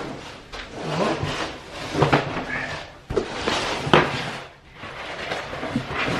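Old sheet flooring being pulled up and folded by hand, stiff sheets crackling and rustling, with sharp cracks about two, three and four seconds in.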